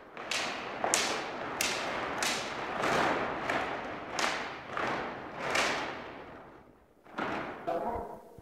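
Large cloth flags swishing through the air in fast, regular swings: about nine strokes, roughly one every two-thirds of a second, each starting with a sharp snap and fading off, dying away a little before the end.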